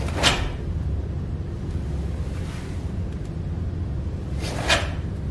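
Two short, sharp swishes about four and a half seconds apart as a karate technique is snapped into focus (kime) at the end of a slow build-up, over a steady low room hum.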